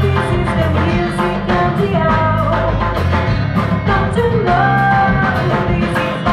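Live band music with a woman singing lead over a steady drum beat and bass line.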